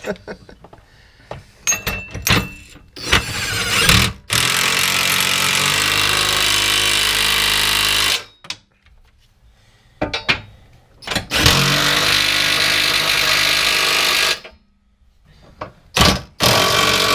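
Cordless impact wrench running in the mounting bolts of a rear chassis (cradle) brace. Short blips lead into two long runs of about four and three seconds, with a short final burst near the end.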